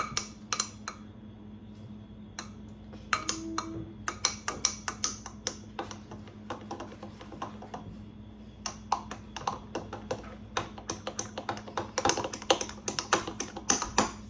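A spoon clinking against the inside of a cup as a drink is stirred, in quick runs of light taps that come thickest about four seconds in and again near the end.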